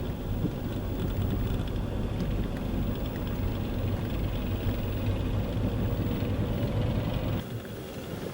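Steady low rumble of a vehicle on the move, which drops off abruptly about seven seconds in.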